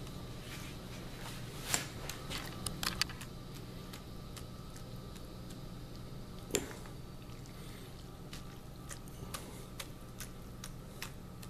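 A metal spoon stirring cooked ramen noodles in broth in a ceramic bowl: soft wet squishing with a few light clinks of the spoon against the bowl, one sharper clink a little past halfway.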